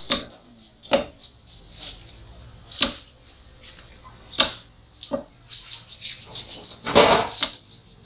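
Heavy cleaver chopping parrotfish into cube-sized pieces on a wooden log chopping block: sharp, separate chops at uneven intervals, with a longer, louder run of blows about seven seconds in.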